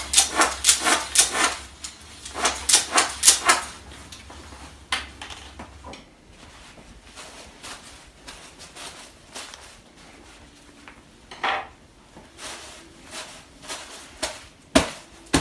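Sharp slaps struck on a person's clothed backside, coming in a rapid run of about four or five a second for the first three and a half seconds, then as scattered single smacks, with a loud one near the end.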